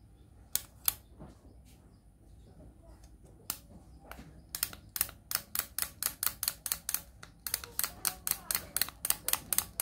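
Toy chick's small mechanism clicking: two clicks near the start, one more after a pause, then a steady run of about four sharp clicks a second from about halfway in.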